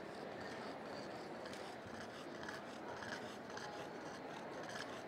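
Short-skulled (brachycephalic) dog breathing noisily, with snorting and snoring sounds on each breath. This is the audible sign of breathing affected by an obstructed upper airway.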